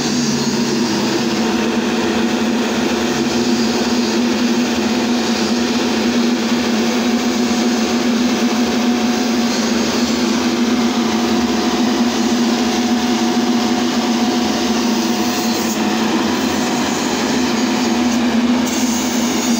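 Kapmix anti-smog gun running: its large fan blowing water mist out of the barrel with a steady droning hum over a broad rushing noise.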